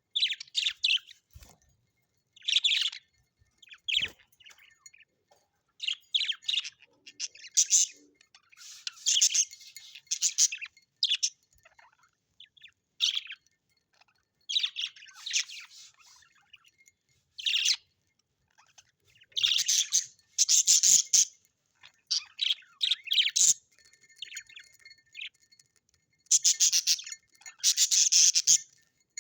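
Birds chirping in repeated short, high-pitched bouts with brief pauses between them.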